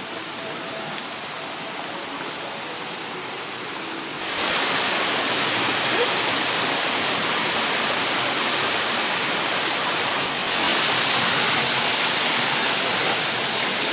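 Waterfall: steady rushing of falling water, growing louder suddenly about four seconds in and again about ten seconds in.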